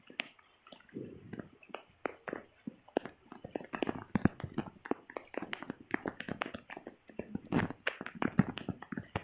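A dense run of irregular small clicks and knocks, with a few muffled low bumps.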